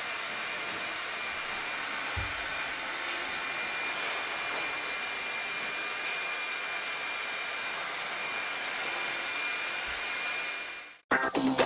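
Leister Sonora S1 hot air hand tool running, its blower giving a steady rushing hiss with a faint high whine while heat-shrinking on contact rails. The sound cuts off abruptly near the end.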